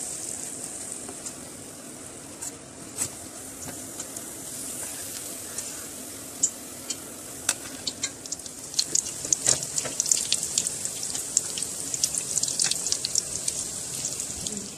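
Dough puffs deep-frying in hot oil: a steady sizzle with sharp crackling pops, which come thicker and faster in the second half.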